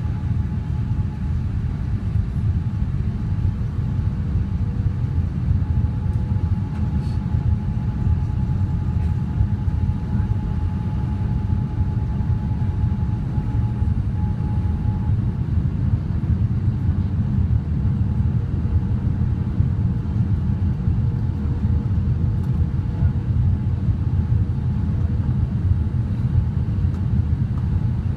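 Steady low rumble of engine and airflow noise inside the passenger cabin of a Boeing 787 Dreamliner on approach, with a faint steady whine above it that fades out about halfway through.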